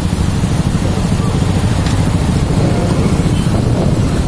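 Motorcycle engines running together in a slow-moving convoy: a steady low rumble.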